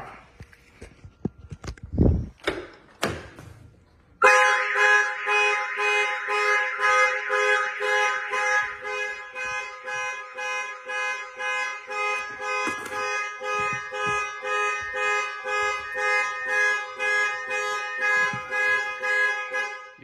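A couple of knocks, then about four seconds in a Compustar car alarm starts suddenly and keeps sounding in loud, even pulses about two a second. It is going off because the door was opened after unlocking with the factory key fob, which cannot disarm the alarm armed from the phone.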